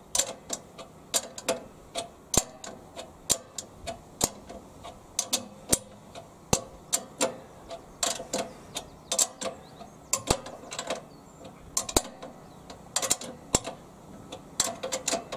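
Ratcheting ring spanner clicking in short, irregular runs as a 13 mm nut is tightened, its pawl ticking on each back-swing.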